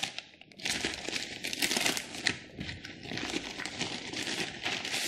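Plastic mailing envelope crinkling and rustling as it is handled and opened, in irregular swells.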